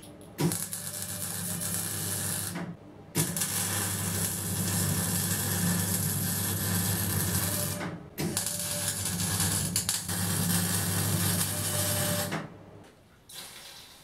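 Welding steel with a gun-type wire-feed (MIG) torch: the arc crackles steadily in three runs of about two, five and four seconds with short breaks between, stopping about twelve seconds in.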